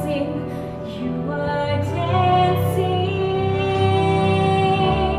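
A young woman singing a solo song over instrumental accompaniment, holding one long note through the second half.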